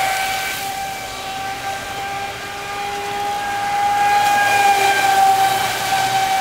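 Traxxas Spartan RC speed boat's brushless motor running flat out on a 4S LiPo battery: a steady, high-pitched whine that holds one pitch. It dips slightly about a second in and grows louder from about four seconds in.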